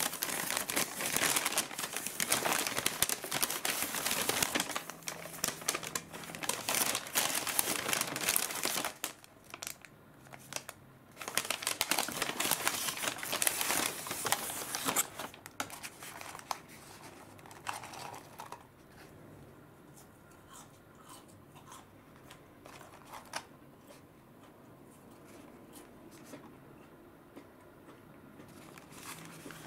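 Paper takeaway bag crinkling and rustling as hands rummage inside it, in dense spells through roughly the first half. It then goes much quieter, leaving only faint, light handling sounds.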